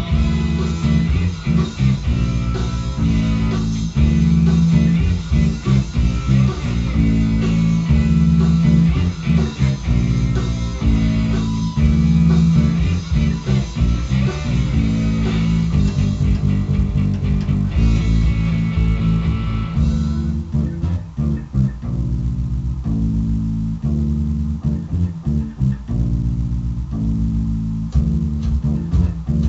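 Electric bass guitar played through an amplifier, picking out a stepping riff along with a rock recording with guitar. About two-thirds of the way through, the higher instruments drop away and the bass carries on nearly alone.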